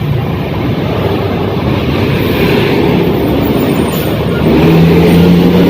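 Roadside traffic noise with a motor vehicle's engine running close by; a steady engine hum comes in louder about four and a half seconds in.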